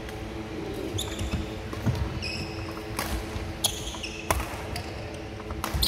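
Badminton rally: rackets strike the shuttlecock with sharp smacks about once a second, and sneakers squeak briefly on the wooden court floor between the hits.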